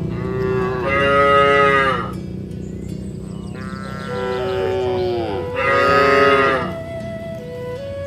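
Cows mooing: two long moos, the first about half a second in and the second from about four seconds in, each held for a couple of seconds.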